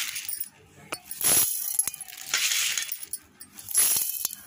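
Dry roasted sprouted wheat and ragi grains poured in several short pours into a stainless-steel mixer-grinder jar, rattling and pattering against the bare steel, with a few small clinks between pours.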